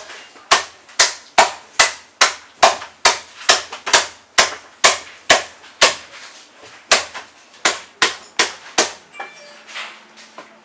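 Heavy cleaver chopping bone-in salted goose on a thick round wooden chopping block: sharp, regular chops about two a second, with a brief pause midway, stopping about nine seconds in.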